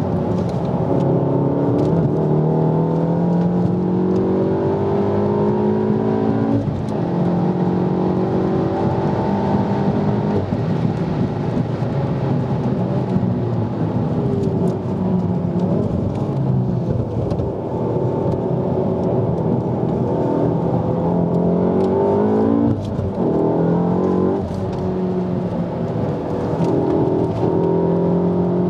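Volkswagen MK7 Golf R's turbocharged 2.0-litre four-cylinder engine heard from inside the cabin, revving hard under acceleration. The revs climb and drop sharply at upshifts about seven seconds in and again near twenty-three seconds, easing off for a stretch in the middle.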